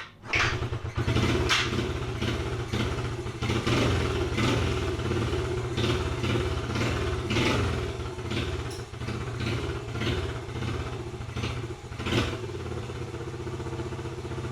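1991 Honda Z50R mini bike's small single-cylinder four-stroke engine running, coming on suddenly just after the start, its revs rising and falling unevenly over and over.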